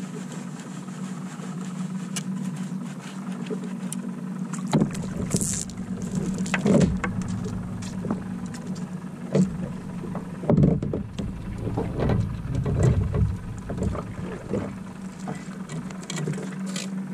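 Squid on a multi-jig rig being reeled up out of the sea and handled aboard a kayak: splashing, drips, knocks and clatter of rig and squid against the hull, starting about five seconds in, over a steady low hum.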